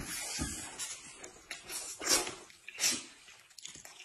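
Close-up eating noises: a person slurping and smacking at food, with two loud slurps about two and three seconds in.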